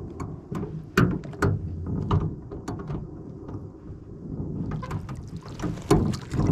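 Scattered sharp knocks and clicks of fishing tackle being handled against an aluminum jon boat, the loudest about a second in and again near the end.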